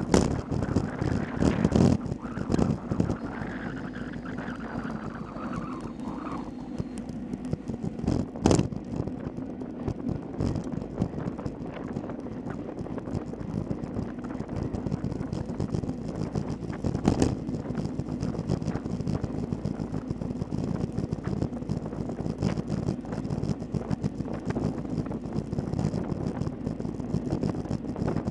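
Wind rushing over a handlebar-mounted camera's microphone on a road bicycle at race speed, with steady road rattle and two sharp knocks, about a third of the way in and again past halfway.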